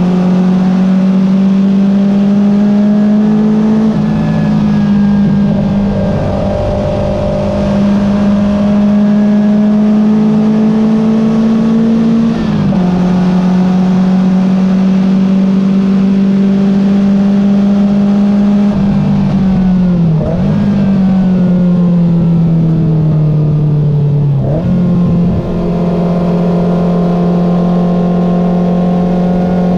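A Porsche 914 race car's engine heard from inside the open cockpit under hard acceleration, revs climbing with upshifts about 4 and 12 seconds in. After about 19 seconds the revs fall under braking, with quick throttle blips on the downshifts, and then it pulls again near the end.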